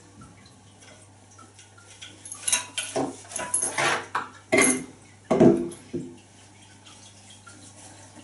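Wooden ice-pick handle sections with plastic end caps being taken out of a fabric case and laid on a table: cloth rustling and a series of knocks and clatters between about two and six seconds in.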